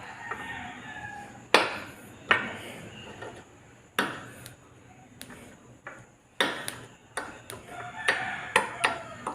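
Irregular sharp clicks and knocks of a graphics card and its metal cooler parts being handled and set down, about a dozen over several seconds. The loudest comes about a second and a half in.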